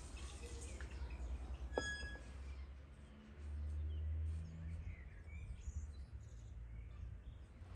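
Quiet garden ambience with birds chirping and a low rumble. Water poured from a jug into the kazan trails off in the first second or so, and one short, ringing metallic clink comes about two seconds in.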